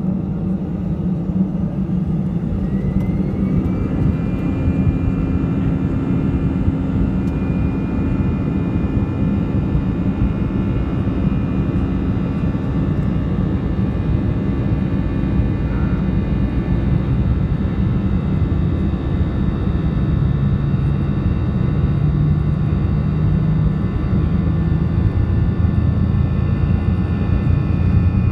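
Airbus A319 jet engines heard from inside the cabin during the take-off roll. A whine rises in pitch a few seconds in as take-off thrust comes up, then holds steady over a heavy low rumble that grows louder toward the end as the plane gathers speed.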